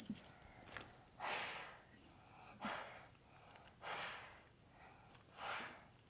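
A person's breathing close to the microphone: four short, noisy breaths about a second and a half apart.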